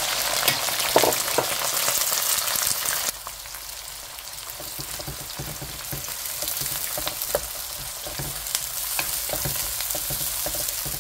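Freshly added sliced onions and bay leaves sizzling in hot oil in a non-stick wok, loud at first, then dropping suddenly about three seconds in to a quieter steady sizzle. A wooden spatula clicks and scrapes against the pan as the onions are stirred.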